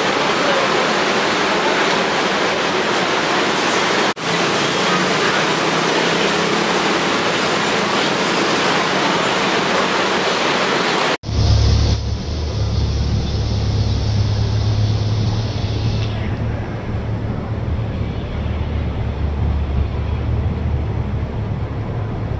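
An even wash of street noise for about eleven seconds. Then, after a cut, a black Porsche 911's engine runs at low revs as the car creeps forward on wet pavement, a deep steady rumble.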